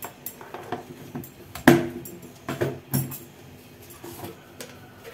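Mustard seeds popping in hot oil in a small steel tempering pan during a tadka: scattered sharp crackles and clicks at irregular intervals, with one louder crack about a second and a half in.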